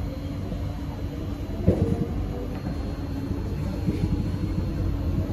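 Interior running noise of a C151A metro train car: a steady low rumble of wheels on the track. About a second and a half in comes a sharp knock with a brief falling squeal, then uneven low thuds.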